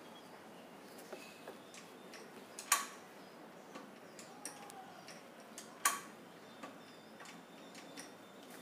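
Scattered light clicks and taps over faint background hiss, with two sharper clicks about three seconds apart.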